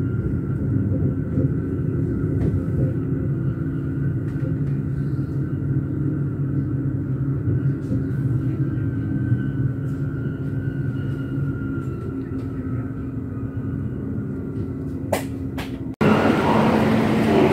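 S-Bahn electric commuter train rolling slowly into the station, heard from inside the carriage as a steady low rumble with a faint high whine. Two sharp clicks come near the end, then the sound cuts abruptly to louder, noisier platform bustle.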